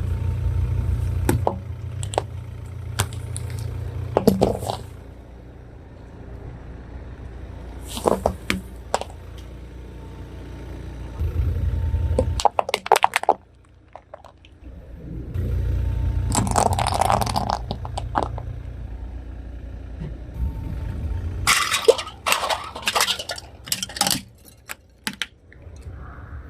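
Car tyre rolling slowly over brittle objects and crushing them: a low engine and tyre rumble in stretches, with sharp cracks and snaps breaking out now and then and coming thickest near the end.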